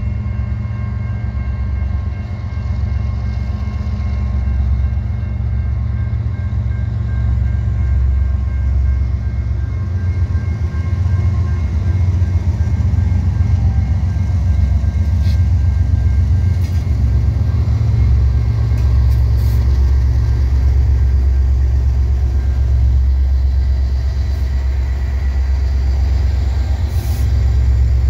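Three CN diesel freight locomotives (an ES44DC, an SD75i and a C44-9WL) running at low speed at the head of an intermodal train, a steady deep rumble that grows louder about halfway through as the units draw level and pass close by.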